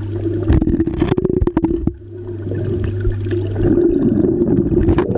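Muffled underwater sound from a camera held under the water: water sloshing and gurgling against the housing, with a string of short clicks and knocks in the first two seconds and another just before the end.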